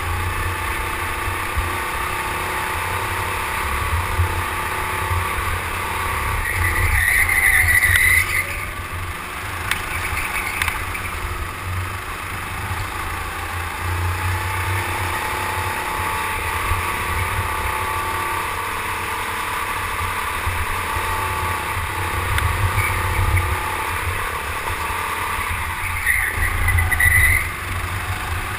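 Indoor racing go-kart at speed, heard from the driver's seat: its motor note rises and falls as it accelerates and brakes around the track. The tyres squeal briefly in corners, about seven seconds in and again near the end.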